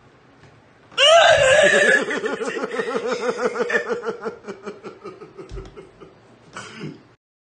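A woman bursting into loud laughter about a second in, loudest at the start, then a long run of rapid laughter that gradually fades.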